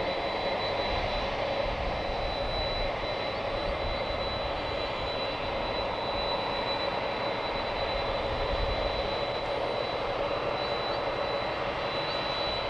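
Boeing 767's jet engines idling: a steady whine with a thin high tone held above it.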